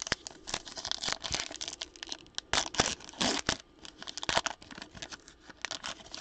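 A foil trading-card pack being torn open by hand, the wrapper crinkling in a run of sharp crackles, loudest in the middle.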